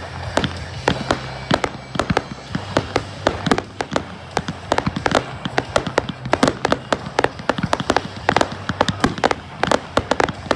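Fireworks going off in quick succession: a dense, irregular string of sharp bangs and pops, several a second, with no let-up.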